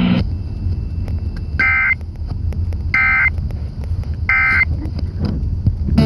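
Emergency Alert System end-of-message data bursts over the radio: three short, buzzy two-pitch digital chirps about a second apart, marking the end of the alert. A steady low rumble runs underneath.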